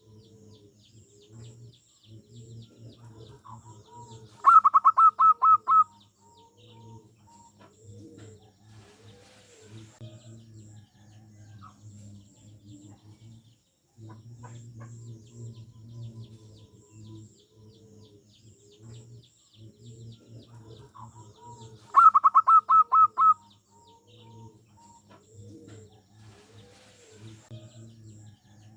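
Zebra dove (perkutut) singing: two loud bouts of rapid staccato cooing, each about eight quick notes lasting just over a second, one about four seconds in and another about twenty-two seconds in. Softer, lower calls and faint high chirps of other birds fill the gaps.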